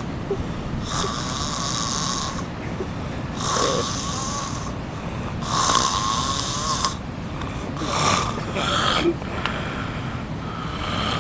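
A man snoring in his sleep, one rasping snore roughly every two seconds, each lasting about a second.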